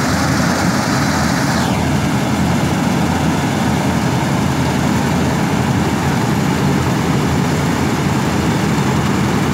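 Combine harvesters' diesel engines running as the machines drive past close by, a loud, steady heavy-engine drone. The higher hiss above it thins out about two seconds in.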